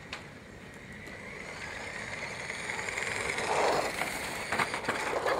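Radio-controlled toy car running: a motor whine with tyre and gravel noise that grows steadily louder as the car comes closer, with a brief burst of scraping noise near the end.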